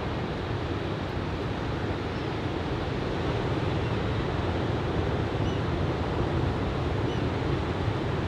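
Steady rush of waves breaking on a beach, mixed with wind noise on the microphone.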